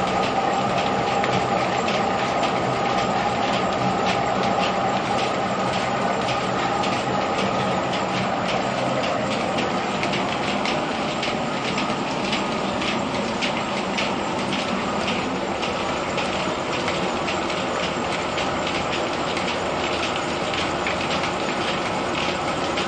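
Threshing machine in a grain mill running steadily, with a dense, even clatter of grain and moving parts.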